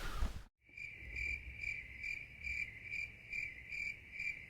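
Cricket chirping: one steady high note pulsing evenly about twice a second, starting right after an abrupt cut to silence about half a second in.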